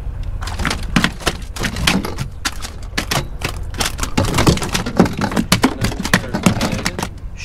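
A freshly landed flounder flopping in a landing net and on a fiberglass boat deck: a rapid, irregular run of slaps, clicks and knocks, with the net's frame and handle clattering against the hull.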